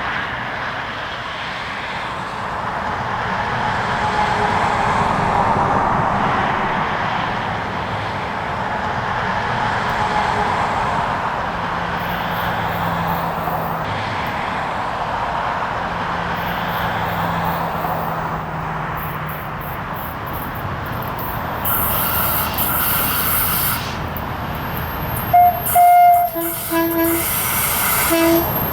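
A train running on the rails with a steady rumble, then several short horn blasts near the end.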